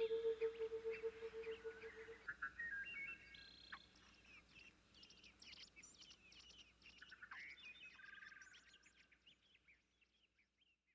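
A held note of ambient music dies away over the first two seconds, leaving faint bird chirps and tweets that fade out toward the end.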